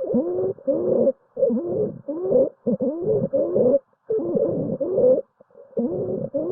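Stridor: quick, short, harsh breaths, about two a second, each carrying a pitched tone that bends up and down. It is the breath sound of a narrowed upper airway, at the larynx or trachea.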